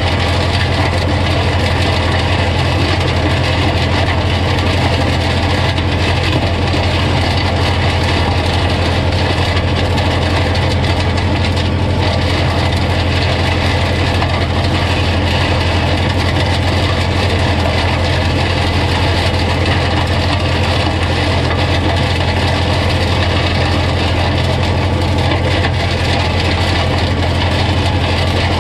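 Holder A45 compact tractor's engine running steadily with the mulcher working, chopping vine prunings: a continuous low engine drone under a dense mechanical clatter, with no change in pace.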